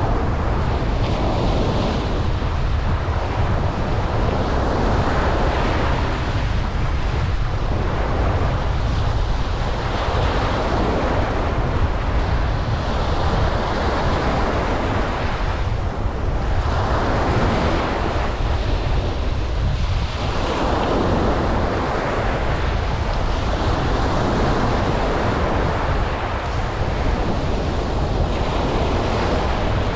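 Ocean surf breaking and washing up a beach, the rush of noise swelling and easing with each wave every few seconds. Wind buffets the microphone with a steady low rumble underneath.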